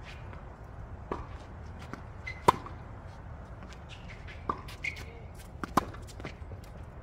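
Tennis balls being struck by racquets and bouncing on a hard court: a handful of sharp separate pocks, the loudest about two and a half seconds in, with more around four and a half and six seconds in.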